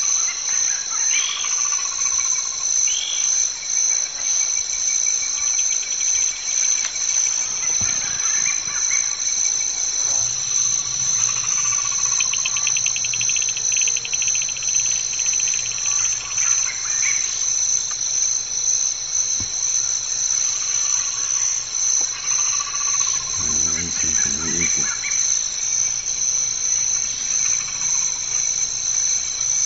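Steady high-pitched chorus of insects, with repeated short falling bird calls over it and a brief low call near the end.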